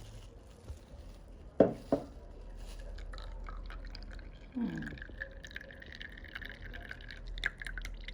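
Brewed coffee poured from a mug through a hand sifter into a second mug: a steady pour and trickle from about two and a half seconds in, straining the chaff out. Just before the pour, two sharp clinks of metal or ceramic about a second and a half in.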